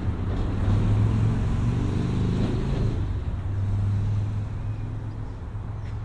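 Traffic crossing a steel truss bridge, heard from beneath the deck as a deep, steady rumble that eases off over the last couple of seconds.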